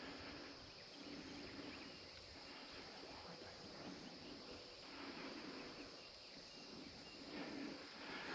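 Faint early-morning field ambience: a steady, high-pitched insect chorus, with a low note that swells and fades several times.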